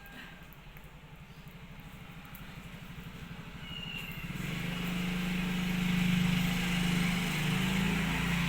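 A motor vehicle's engine running outside, with a fast, even pulsing drone that grows louder over the first few seconds as it approaches and stays loud after that.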